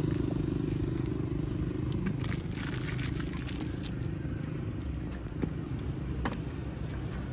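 A small engine's steady hum, fading away over the first two seconds, then the crackle of a plastic snack wrapper being handled and a few scattered clicks.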